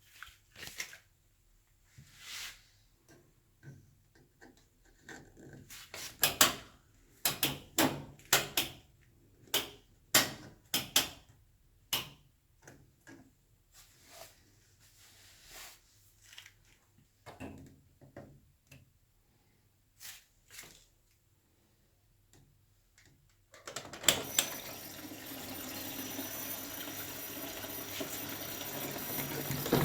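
A run of sharp, scattered clicks and knocks from handling the Candy Formula Inox P 7.71X washing machine. About 24 s in, the water inlet valve opens and water rushes into the machine with a steady hiss that slowly grows louder: the wash cycle has begun filling.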